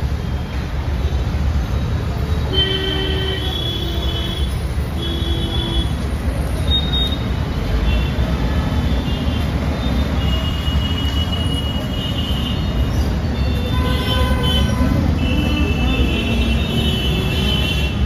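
Steady rumble of road traffic with several short horn toots.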